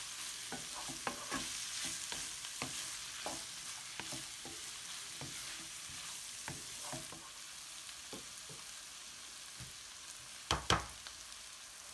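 Minced dulet (tripe, liver and meat) frying with butter and mitmita, a steady sizzle with a spoon stirring and clicking against the pan. Two sharp knocks near the end.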